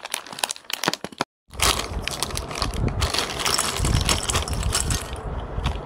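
Crinkly plastic snack packet of Kurkure being handled and shaken out, the curls clattering into a bowl: continuous crackling and rustling with low handling thumps, broken by a brief dropout about a second in.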